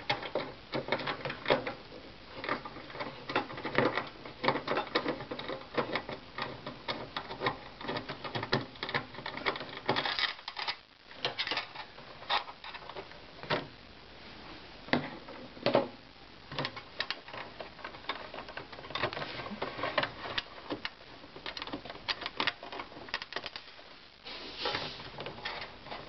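Irregular small clicks, taps and light rattles of a screw being worked loose from the steel chassis of a Dell Dimension 2400 desktop computer, with hands knocking against the metal case.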